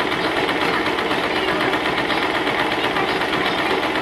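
Electric domestic sewing machine running steadily at speed, its needle stitching rapidly through a woven section of cotton cord.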